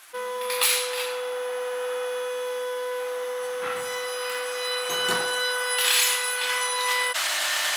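Timber parts and a long bar clamp being handled on a wooden workbench: several brief scrapes and knocks of wood, over a steady machine hum in the shop that changes to a different pitch near the end.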